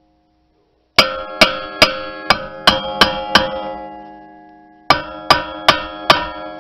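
Hammer blows on a rust-seized rear brake rotor still on its hub, each strike leaving the cast-iron rotor ringing. There are seven quick blows, a short pause, then four more, about two to three a second. The blows and their vibration are meant to break the rotor's rust bond to the hub.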